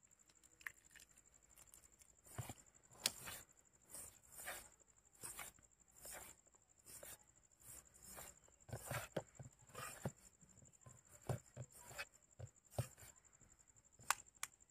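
Hands working banana into a bowl of dry rice-bran and flour bait mix: a quiet, irregular series of short rustles and scrapes, about one or two a second, with a few sharp clicks.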